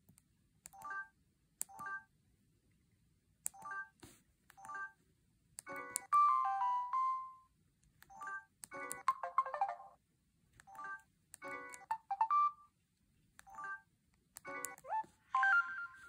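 Samsung SGH-F400 phone's preloaded message alert tones playing from its speaker one after another as the selection moves down the list, each a short electronic jingle of a second or two. Short key-press beeps sound at each button press, several in the first seconds before the first jingle.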